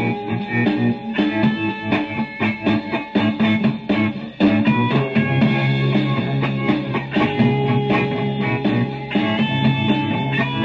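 Rock band music led by electric guitar, with bass and drums keeping a steady beat. The recording is dull, with no treble above the midrange.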